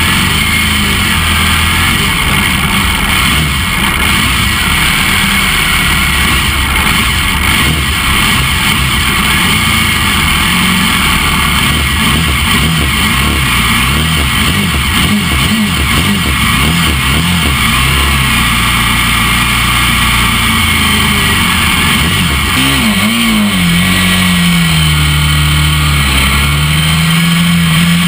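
Honda NC30 race motorcycle's V4 engine running at idle with throttle blips, among other race bikes' engines. Near the end the bike pulls away: the engine note rises, drops at a gear change, and rises again.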